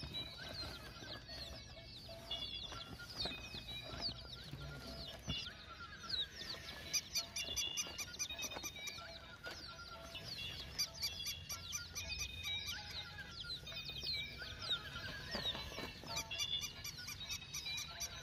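A flock of poultry calling: many short, high chirps and clucks overlapping continuously.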